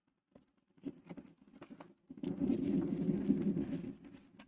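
Oversized tarot cards being handled on a tabletop: a few light taps about a second in, then about two seconds of cards sliding and rubbing against each other and the table.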